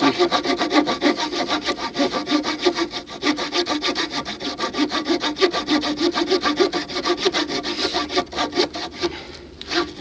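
Victorinox RangerGrip pocket-knife saw blade cutting through a wooden pole in rapid, even back-and-forth strokes, with a brief pause just before the end. The blade is starting to bind slightly in the cut.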